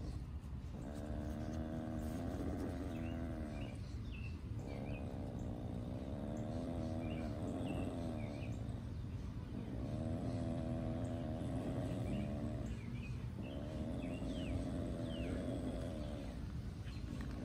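Virginia opossum growling through an open, tooth-baring mouth in four long wavering bouts with short breaks between, the defensive threat of a trapped opossum. Small birds chirp in the background over a low steady rumble.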